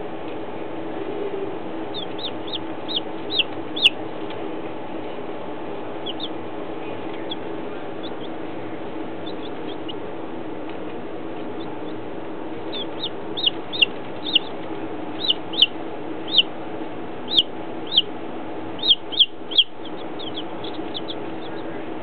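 Baby chicks peeping: short, high chirps that fall in pitch, in a brief cluster a couple of seconds in and a longer run through the second half, over a steady low hum.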